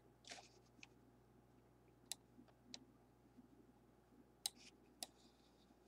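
Faint computer mouse clicks, about six of them spread out over near silence.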